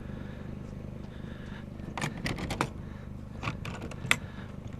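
Scattered light clicks and knocks of hard objects being handled, in small clusters, over a steady low hum.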